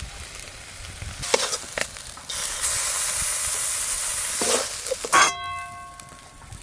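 Bottle gourd leaf paste sizzling in a pan as it is stirred and scraped to cook off its water, the hiss swelling loud for a couple of seconds. Near the end a metal utensil clangs against metal and rings on for over a second.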